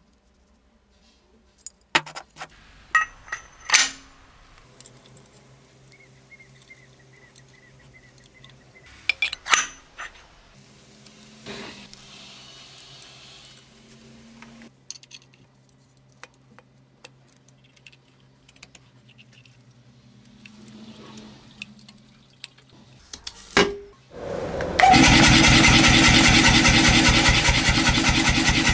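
Steel die covers clink and knock as they are handled and bolted onto the power hammer dies with an Allen key. Near the end a mechanical power hammer starts up and pounds red-hot steel between the bolt-on drawing dies with rapid, even blows, the loudest sound.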